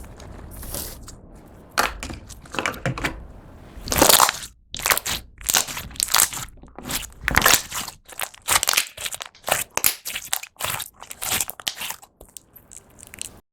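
Slime being pressed and squeezed by hand, making a long run of short, crisp crackles that come thick and fast after about four seconds in.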